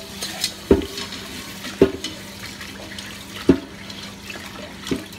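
Kitchen tap running into a non-stick pot as rice is washed by hand in a stainless steel sink, with water swishing over the grains. Four sharp knocks sound over the running water.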